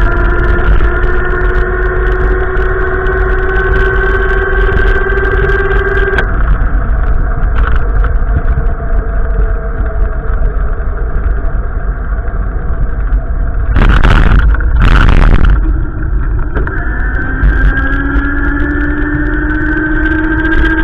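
A motor vehicle's engine or drive whine rising slowly in pitch. It drops away about six seconds in and climbs again from a lower pitch near the end, over a constant low rumble. Two loud bursts of noise come about two-thirds of the way through.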